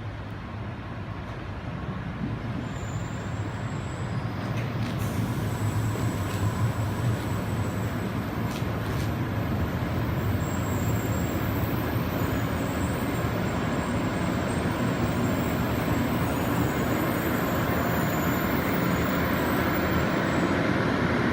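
Shinkansen train noise at a station platform: a deep, steady rumble with hiss that builds gradually over the first several seconds, then holds loud.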